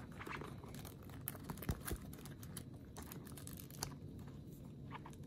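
Faint scattered clicks and rustles of hands handling planner pages and a metal binder-clip pen loop as it is fitted onto the pages.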